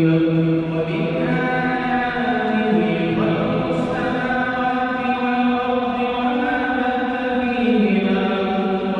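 Imam's Quran recitation during congregational prayer: one male voice chanting melodically, holding long notes and moving between pitches.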